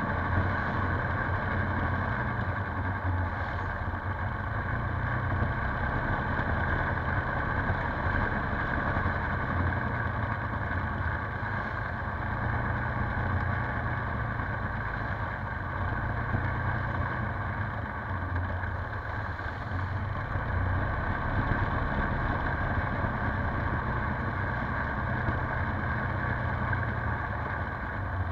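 Polaris Sportsman 570 ATV's single-cylinder four-stroke engine running steadily under way, holding a fairly even pace with only slight swells in loudness.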